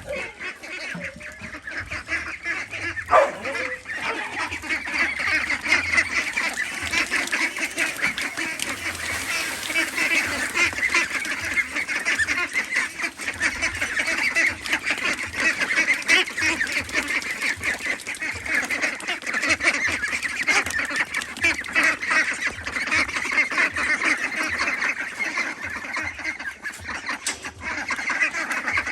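A large flock of domestic ducks quacking continuously, a dense din of many birds calling over one another, with a brief sharp sound about three seconds in.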